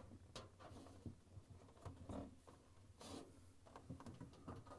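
Near silence with faint rubbing and a few light clicks as hands work the evaporator cover into place inside a refrigerator's freezer compartment.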